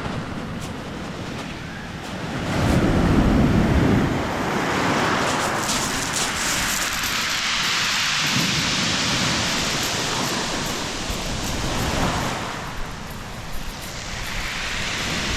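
Wind rushing over the microphone together with the wash of sea surf, a steady rushing noise that swells a few seconds in and eases near the end.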